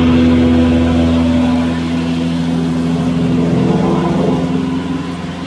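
Electric flour mill (atta chakki) running with a steady, loud hum, easing off a little near the end.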